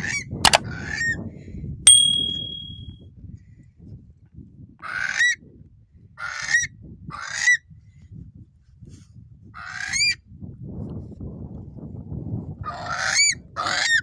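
Curlew calls: short whistled notes that rise and then fall, coming singly or in bunches of two or three every few seconds. A sharp click is heard just after the start, and a click with a brief steady high tone about two seconds in, over a low rumble.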